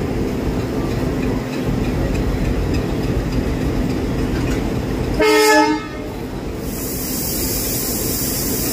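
Diesel locomotive idling steadily at close range, with a short train horn blast a little after five seconds in. Near the end a steady hiss of air sets in.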